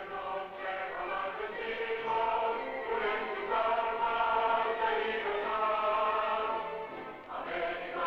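Choral music: a group of voices singing long, held notes that shift slowly, with a brief drop in loudness about seven seconds in.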